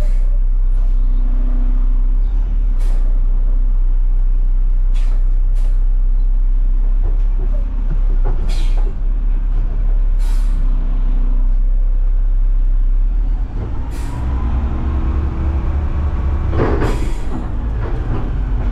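Front-load garbage truck's diesel engine running steadily, with short sharp hisses of air now and then. About 13 seconds in, the engine revs up and a rising whine joins it, loudest near the end.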